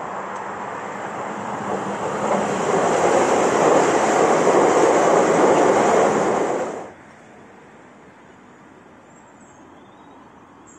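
Electric multiple-unit passenger train passing along the platform, its wheels and motors growing steadily louder as the cars go by. The sound cuts off abruptly about seven seconds in, leaving low, steady outdoor background.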